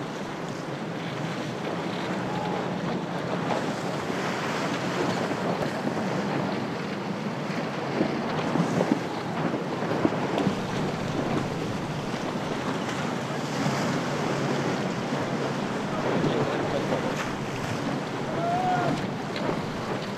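Wind buffeting the microphone over rushing and splashing sea water around sailing yachts in choppy water, with a few louder gusts or splashes a little before the middle.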